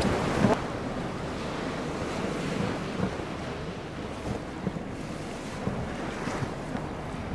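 Wind buffeting the microphone over open sea water washing and lapping, heard from a small inflatable Zodiac boat on the open sea.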